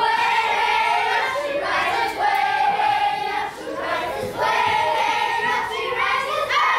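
A group of young children singing a song together in unison, holding notes for about a second at a time.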